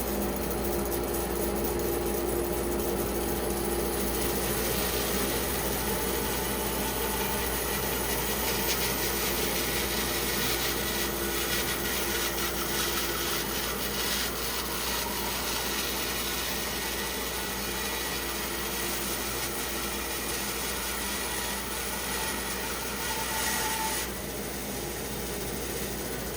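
Band saw running and cutting through a wet spalted pecan log, a steady sawing noise over the motor's hum that eases slightly near the end.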